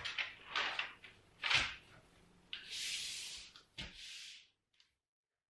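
Paper and handling sounds from a sheet of paper on a table: a few short rustles, a longer sliding rustle about two and a half seconds in, and a knock near four seconds. The sounds stop about four and a half seconds in.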